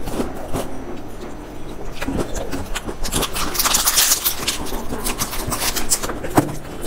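Close-miked chewing of a crisp biscuit with small crunches, then a small snack wrapper crinkling as it is torn open, starting about three seconds in and lasting a couple of seconds.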